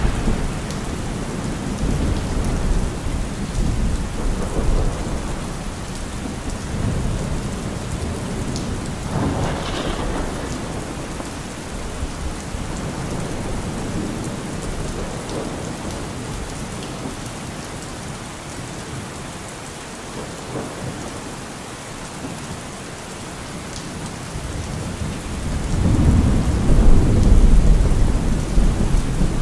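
Steady rain falling, with thunder: a low rumble dying away at the start, a sharper roll about ten seconds in, and a long, loud low rumble near the end.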